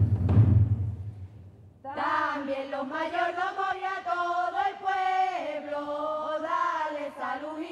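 Drum strikes die away over the first second or two, then after a short hush a slow, unaccompanied chant is sung, with long held notes.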